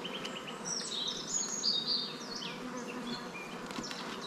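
Honeybees buzzing in numbers around an open hive, a steady hum. Birds chirp over it, busiest and loudest between about one and two seconds in.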